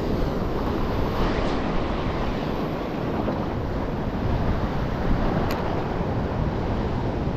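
Steady wind buffeting the microphone over the wash of sea surf against the rocks.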